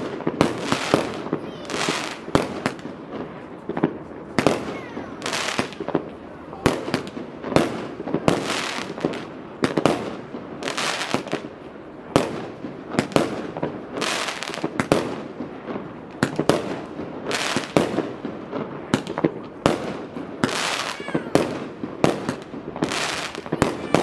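Fireworks display: a steady, rapid run of shell bursts and crackling salvos, about one or two a second.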